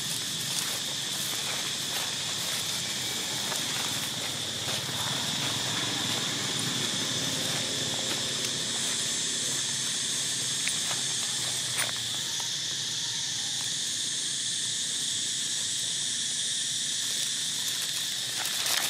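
A steady, high-pitched drone of insects with no break, plus a few light crackles of dry leaf litter.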